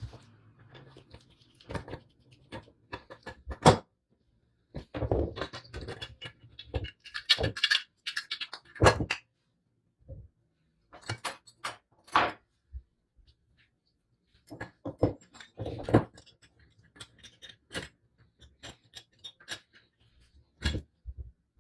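Metal parts of a small vintage balance scale clicking, clinking and knocking as they are handled and fitted onto the scale's base by hand. The knocks come at irregular intervals, with a denser spell of rattling about eight seconds in.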